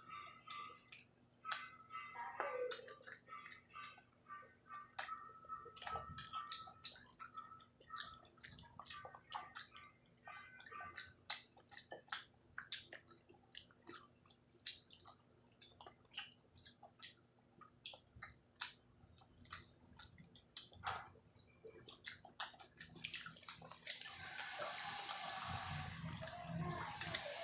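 Close-up eating sounds: many short, wet clicks and smacks of chewing and mouth noises, irregular throughout. A denser, louder noise builds up near the end.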